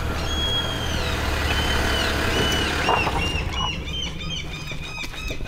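SUV engine idling with a low steady hum, while birds chirp with many short, high whistles over it.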